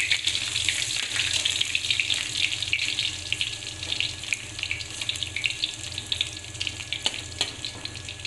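Eggplant pieces frying in hot oil: a continuous crackling sizzle with many small pops, gradually easing off over the seconds. A low steady hum runs underneath.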